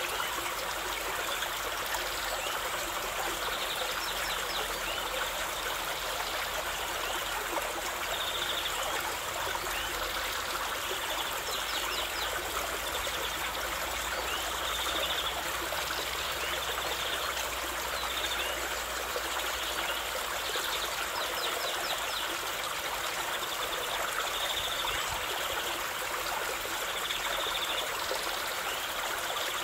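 Water cascading over rocks: a steady rush of a small waterfall and stream. Short high bird calls come in every few seconds.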